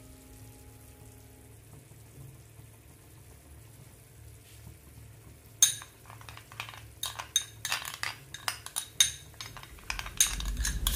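A steel spoon clinking quickly and repeatedly against a small glass bowl as it stirs a cornflour slurry. The clinking starts a little past halfway with one sharp strike.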